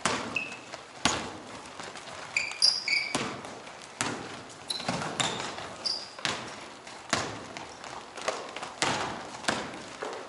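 A basketball bouncing on an indoor court: a sharp echoing thud roughly once a second at an uneven pace, with short high sneaker squeaks in between.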